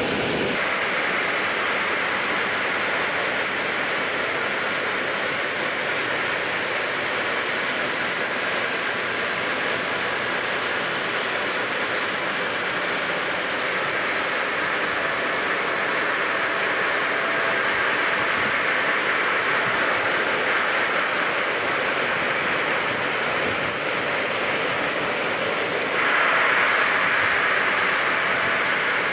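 Granite block cutter's large circular diamond saw blade cutting through a granite block under a water spray: a steady rush of water and grinding with a high, even whine. It grows a little louder near the end.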